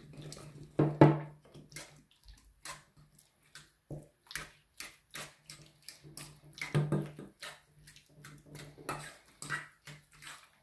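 Wet ricotta, still holding its liquid, being mashed in a stainless steel bowl: irregular wet squishes with the utensil clicking and scraping against the metal.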